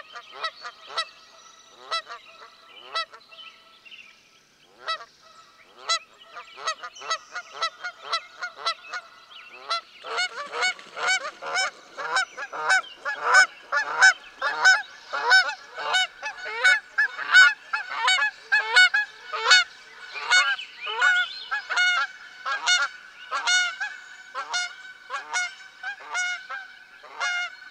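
A flock of large birds honking over and over: a few calls at a time at first, then a dense, overlapping chorus from about ten seconds in.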